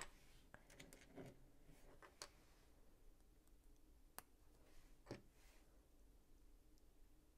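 Faint, scattered clicks and taps of plastic LEGO pieces being handled and fitted together, a few separate clicks several seconds apart.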